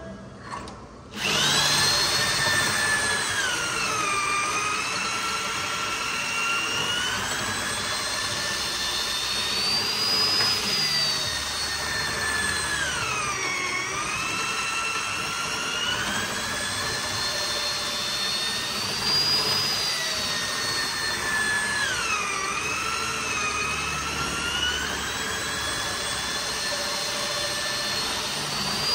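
Corded electric drill with a long bit boring lengthwise through a solid wood slab, starting up about a second in and then running steadily. Its whine drops in pitch three times and recovers. The hole is for a clamping rod that keeps the slab from cracking and warping.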